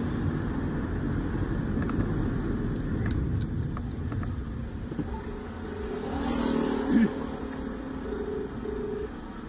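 Steady engine and road rumble heard from inside a car creeping along in town traffic. It swells briefly louder about six to seven seconds in, and two short steady tones come near the end.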